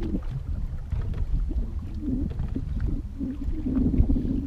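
Wind buffeting the microphone over water lapping against the hull of a small drifting boat: a steady low rumble with a wavering low hum and faint scattered slaps.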